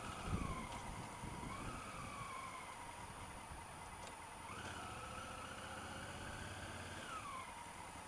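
Honda Africa Twin CRF1000L's parallel-twin ridden at low speed in traffic: a whining tone from the bike rises and falls in pitch with the throttle. It climbs about four and a half seconds in as the bike picks up speed, then drops back near the end as the throttle closes.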